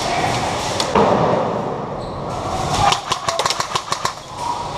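Airsoft rifle firing a rapid string of sharp shots, starting about three seconds in. Before that there is a noisy wash with one loud knock about a second in.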